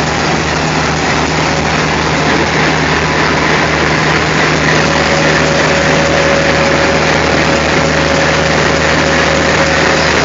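Diesel locomotive engine running steadily at idle, a constant low hum, with a faint steady whine joining in about halfway through.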